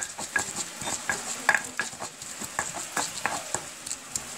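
Stone pestle grinding garlic and whole spices in a volcanic-stone molcajete: irregular gritty scrapes and clicks of stone on stone.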